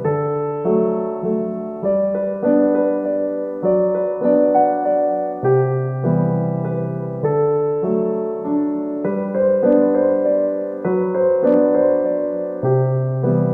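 Background music: a gentle piano or electric-piano melody over held bass notes, the notes changing about every second.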